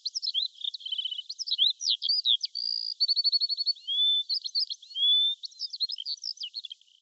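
Songbird song: a quick, varied run of chirps, short rising and falling whistles, and rapid trills, thin and high with no low sound under it.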